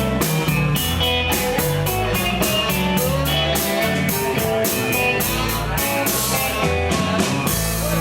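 A rock band playing an instrumental intro: electric guitar, bass and a drum kit keeping a steady beat.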